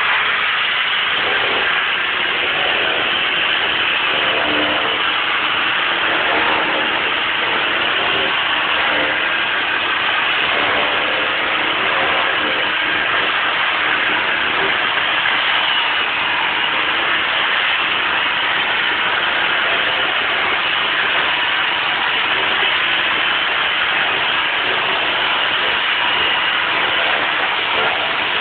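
Dust-free rotary parquet sanding machine running steadily while sanding a parquet floor panel, its motor and the dust-extraction suction making a constant loud rushing hum.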